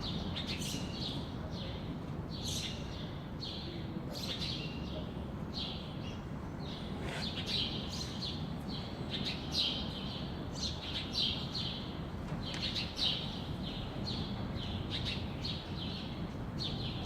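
Small birds chirping: many short, quick chirps one after another, over a steady low background rumble.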